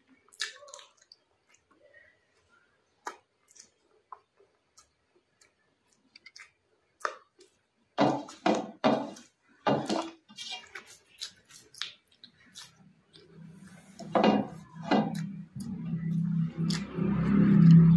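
Eating sounds: scattered clicks and clinks of dishes and cutlery, then a run of louder mouth sounds about eight seconds in. In the last few seconds a steady low hum rises under a growing hiss.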